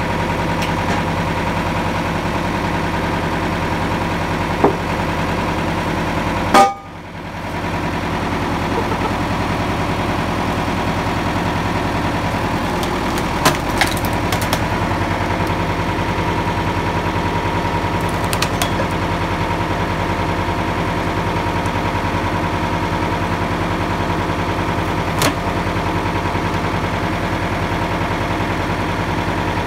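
Tractor engine running steadily, powering a hydraulic log splitter, with a few sharp knocks and cracks as the splitter works. About seven seconds in, a loud knock is followed by the sound briefly dropping away.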